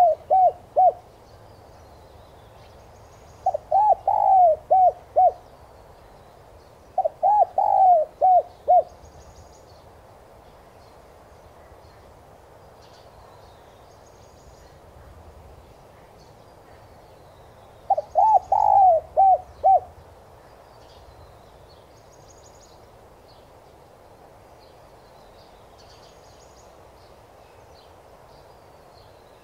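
Spotted dove cooing: phrases of about five quick coo notes, the first notes higher and the last ones lower, each phrase lasting about two seconds. One phrase ends about a second in, two more follow a few seconds apart, then there is a long gap before a last phrase about eighteen seconds in. This is the dove's cooing song as used for a lure or decoy call.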